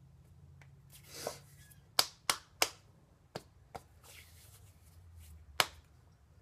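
Hands striking and brushing against each other while signing in sign language: a rustling swish about a second in, three sharp slaps in quick succession around two seconds, two softer taps, another swish, and one more sharp slap near the end.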